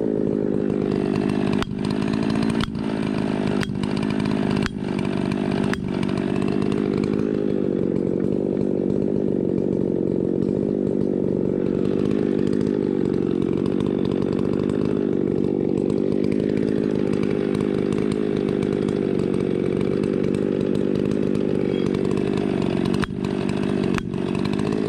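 Engine running steadily at constant speed, with a series of sharp knocks in the first six seconds and two more near the end.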